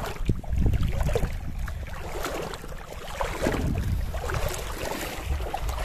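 Feet wading through shallow seawater, splashing and sloshing unevenly, with wind rumbling on the microphone.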